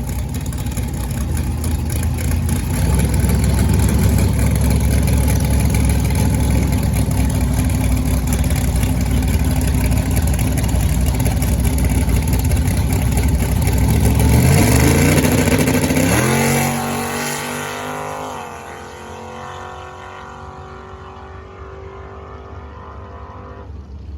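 Big-block Chevy V8 of a nitrous-fed C10 drag truck running hard at wide-open throttle, loud and steady for most of the pass. About two thirds in the pitch climbs sharply, then the sound drops away to a quieter, steady engine note.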